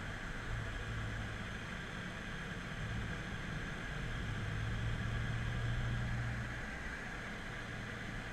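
BMW F10 M5's V8 heard from inside the cabin while driving on a circuit: a steady low engine hum over road and wind noise. The engine note grows louder from about halfway through and eases back near the end.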